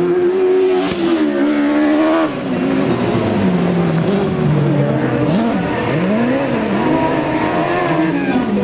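Several autocross race cars running together on a dirt track, their engines revving up and down through the gears with overlapping, shifting engine notes.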